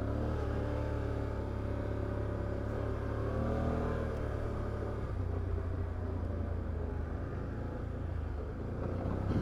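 Can-Am Outlander 850 XT ATV's V-twin engine running at a steady low trail pace, the revs rising briefly and falling back about three to four seconds in.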